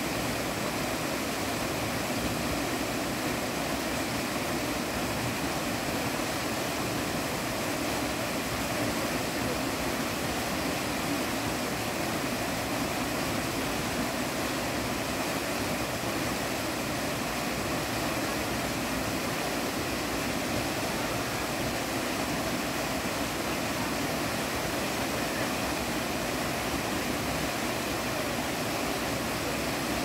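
Small waterfall pouring off a rock ledge into a shallow pool: a steady, unbroken rush of falling water.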